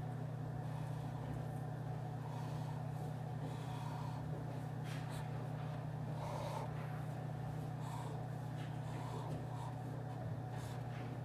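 Office room ambience: a steady low hum with faint, scattered small clicks and muffled background sounds.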